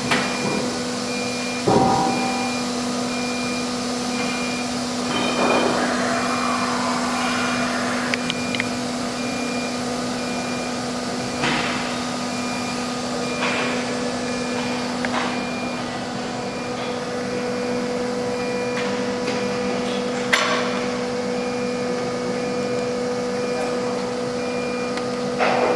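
CNC router machine running with a steady electric hum, a faint high tone pulsing on and off over it. Several sharp knocks come at irregular gaps, the loudest about two seconds in.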